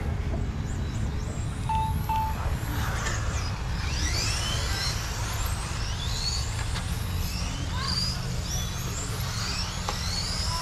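RC car motor whining in short, repeated rising glides as the car accelerates again and again, over a steady low rumble. Two short beeps sound about two seconds in.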